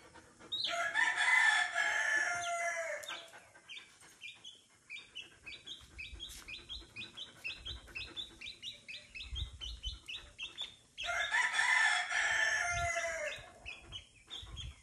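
A rooster crowing twice, about half a second in and again near the end. Between the crows a small chick peeps in quick, repeated short cheeps.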